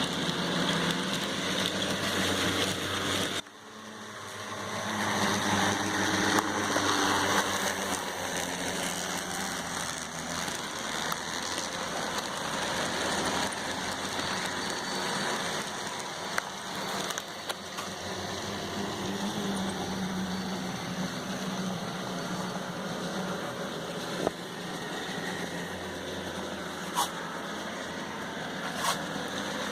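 N scale model train running on the layout: a steady whir of the small locomotive motor and wheels on the rails. It drops off sharply about three and a half seconds in and builds back up, with a few sharp clicks later on.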